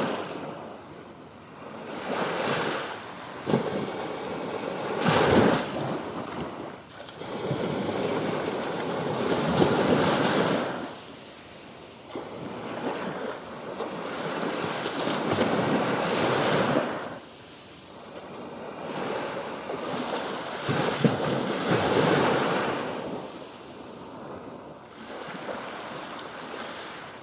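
Sea waves breaking and washing up on the shore, the surf swelling and falling back every few seconds.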